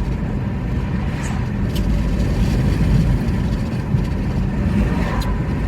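Steady low rumble, with a few faint short clicks.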